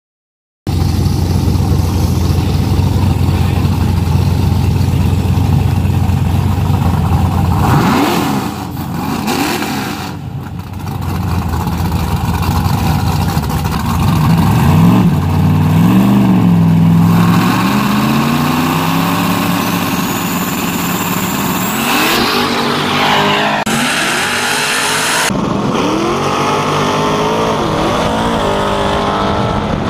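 Big-turbo Camaro and its rival's drag-race engines. First comes a steady high-revving burnout, then the engines rev up and down and pull hard as the cars launch and accelerate.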